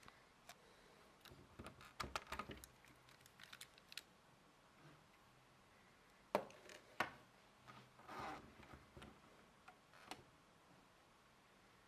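Lego plastic parts clicking and rattling as the rifle's mechanism is handled: a quick run of light clicks about two seconds in, two sharper snaps about six and seven seconds in, and a brief rattle near eight seconds.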